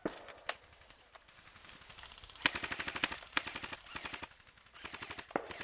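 Airsoft electric rifle firing on full auto: a few single snaps, then rapid bursts, the longest about a second, followed by shorter ones.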